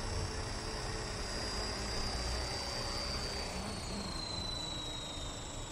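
WLtoys V913 electric RC helicopter's motor and rotor whining steadily in a low hover, then falling in pitch from about three seconds in as it sets down and spools down.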